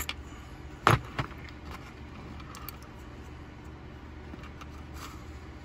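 Two sharp knocks about a second in, the first the louder, as small knife parts and a driver bit are set down and handled on a cardboard-covered table, followed by a few faint clicks.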